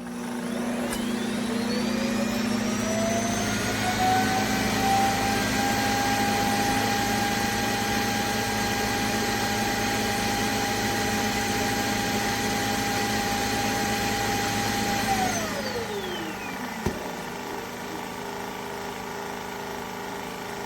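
Self-emptying robot-vacuum dock's suction motor starting up with a whine that rises in pitch over several seconds, running loud and steady, then winding down about fifteen seconds in: the base emptying the robot's dustbin. A sharp click follows, with a quieter steady hum after it.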